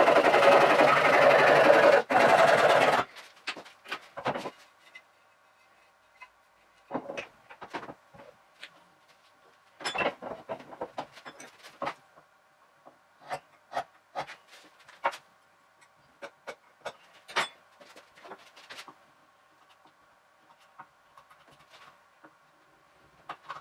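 Hand saw cutting wood, sped up so the strokes run together into a fast rasp that stops abruptly about three seconds in. Scattered light knocks and clicks of tools being handled and set down on the wooden bench follow.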